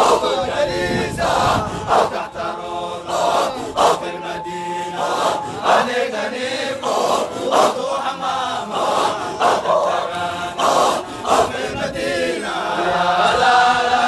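A group of voices chanting a Sufi dhikr in a steady rhythm, with regular sharp accents.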